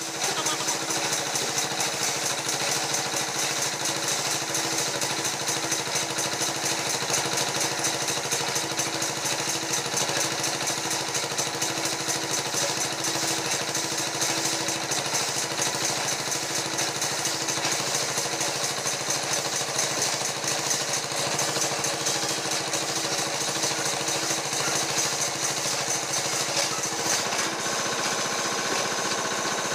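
Horizontal band sawmill and its belt-driven machinery running steadily: a fast, even clatter over a steady hum.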